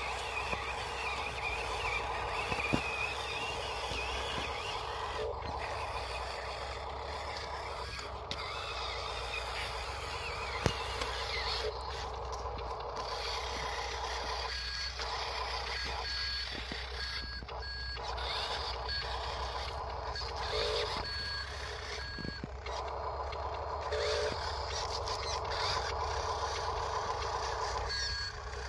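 Huina RC dump truck running, with its sound module sounding a reversing beep: short electronic beeps about once a second from about halfway through, over a steady mechanical running sound.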